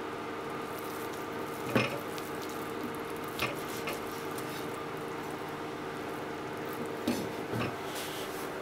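A steady hum runs under four short, light knocks of utensils on a plastic cutting board, the loudest about two seconds in and two close together near the end.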